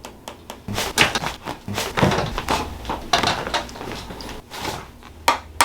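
A quick, irregular run of sharp clicks and knocks, with two crisp cracks near the end.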